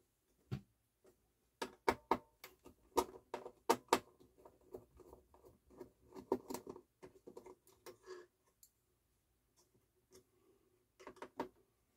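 Metal parts of a turntable's cueing lift mechanism clicking and tapping as hands work them loose: a run of irregular small clicks for several seconds, a pause, then a few more clicks near the end.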